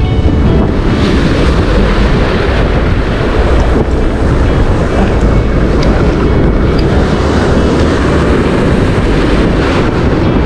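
Sea surf breaking and washing over shore rocks, with wind buffeting the microphone in a steady, loud rumble.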